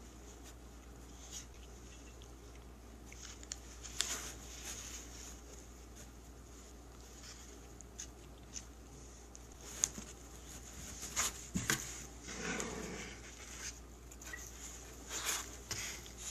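Cat scrabbling and pawing in a cardboard box: scattered light scratches and taps, busier in the second half, with a short rustle near the end.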